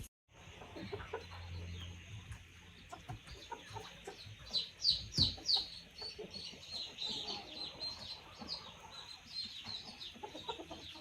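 Birds chirping: a run of quick, high chirps that each fall in pitch, busiest around the middle, over a faint low hum.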